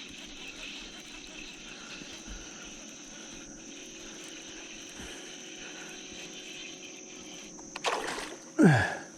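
Steady outdoor background with a constant high-pitched drone. Near the end comes a sudden loud commotion as a hooked bass comes into the boat, flops and falls back into the water.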